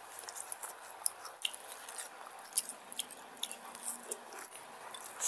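Close-miked wet chewing of a mouthful of rice and curry eaten by hand, with many short, sharp lip-smacking and mouth clicks.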